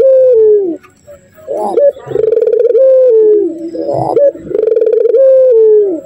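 A Barbary dove (puter) cooing loudly in about three long coos. Each coo opens with a short rising note and then holds a steady tone that steps down and falls away at its end.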